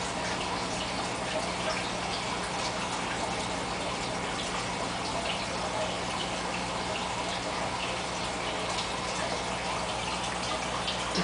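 Aquarium filter's return water splashing steadily into the tank's surface, with small drips and a steady low hum beneath.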